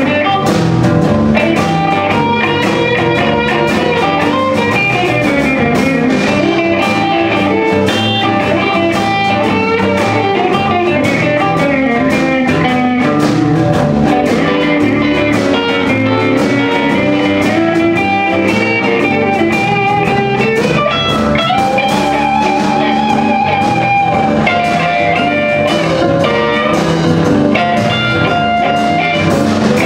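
Live blues band playing: electric guitar lines over keyboard, bass and drum kit.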